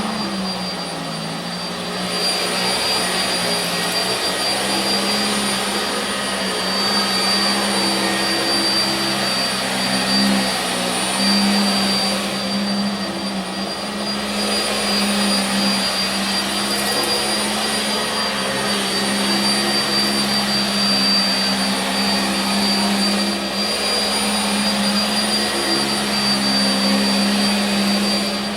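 Sanitaire SC679j upright vacuum cleaner running steadily on carpet, set to its lowest height for the first pass. A constant high motor whine sits over the suction noise, swelling and easing slightly as it is worked back and forth.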